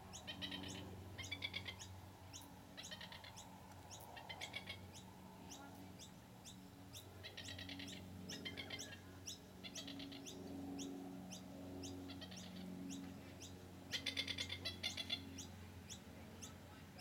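Masked lapwings calling in short rattling bursts of rapid notes, one every second or two, with the loudest burst near the end. A steady low hum runs underneath.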